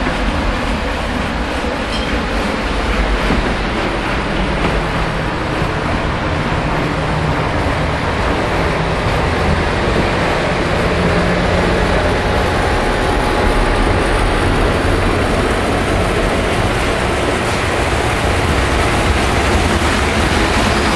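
Lionel O gauge model trains running on metal track: a steady rumble and clatter of wheels and motors.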